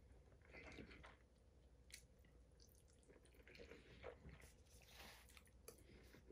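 Faint eating sounds: a man chewing mouthfuls of pasta in meat sauce, with a few soft clicks of a fork against a stainless steel bowl.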